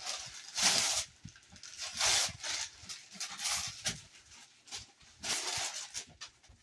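Wrapping paper being torn and crumpled off a cardboard gift box, in several short rips about a second apart.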